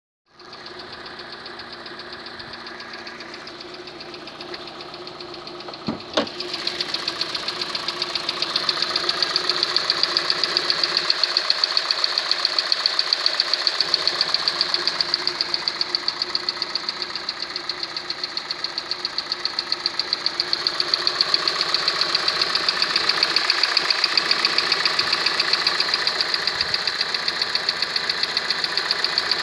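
Hyundai Creta's 2.0 G4NA (Nu) four-cylinder petrol engine running cold with a rapid, even knock. The owner says the knock appears only on a cold start after the car has stood for hours, quickens with revs and goes away within a few minutes, and that changing oil brand or viscosity does not help. A single thump comes about six seconds in, after which the engine is heard louder.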